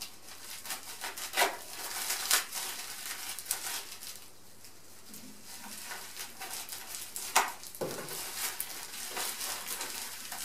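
Plastic wrapping crinkling and rustling as it is cut open with scissors and handled, with a few sharp crackles, the loudest about seven seconds in.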